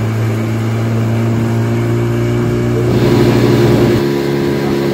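Outboard motor of a small open boat running steadily under way, a constant engine hum over the rush of water and wind.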